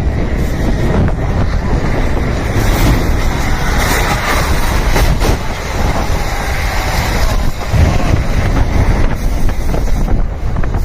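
Strong wind buffeting the microphone, a loud continuous rumble of gusts with no let-up.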